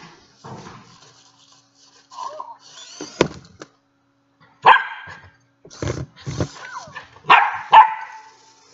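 A few sharp dog barks, the loudest about halfway through and two close together near the end, with a couple of dull knocks in between.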